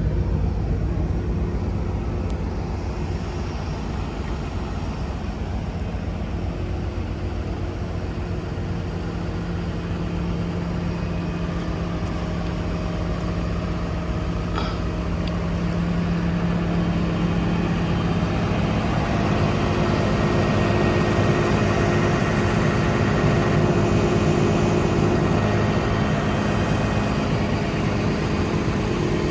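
Komatsu PC290LC-11 excavator's diesel engine running steadily with a low hum, growing somewhat louder about two-thirds of the way in.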